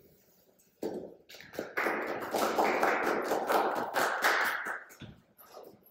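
Small audience applauding: a few seconds of scattered hand claps that start about a second in and die away near the end.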